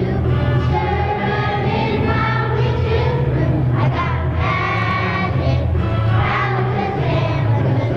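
Children's choir singing a song together over a steady low accompaniment.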